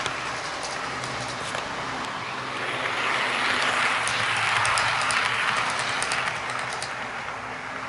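HO gauge model train, an EF81 electric locomotive hauling Koki 50000 flat wagons, running past on the track with a steady rolling hum. The hum grows louder as the locomotive and wagons pass a few seconds in, with a rapid run of light clicks, then fades near the end.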